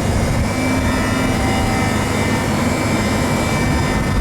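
Cat GC25K forklift's propane engine running steadily, a constant low engine hum with a steady whine above it.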